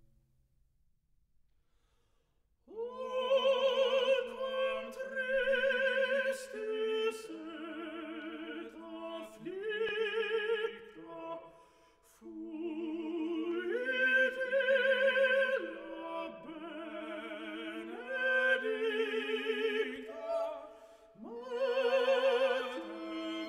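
Background music: operatic singing with strong vibrato over classical accompaniment. It comes in after nearly three seconds of near silence and moves through a series of sustained notes.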